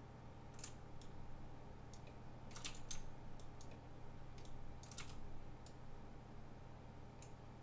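Faint, irregular clicks of a computer keyboard and mouse, some in quick clusters, over a steady low hum.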